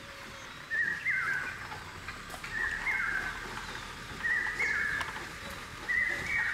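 Common hawk-cuckoo calling: a shrill phrase repeated four times, about every 1.7 seconds, each one stepping up and then sliding down in pitch.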